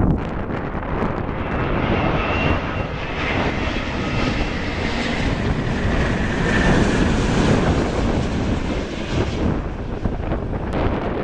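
Airbus A350-900's Rolls-Royce Trent XWB turbofans as the jet comes in to land: a steady jet rush with a faint high whine, its upper hiss fading away near the end.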